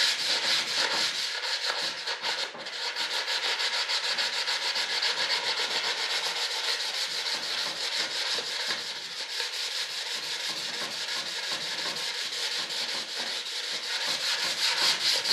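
Sandpaper rubbed by hand over a filler-coated duct plug, a steady run of quick back-and-forth scratching strokes.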